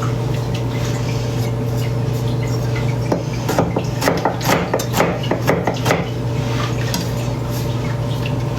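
Kitchen clatter of dishes and utensils: a quick run of clinks and knocks in the middle, over a steady low hum.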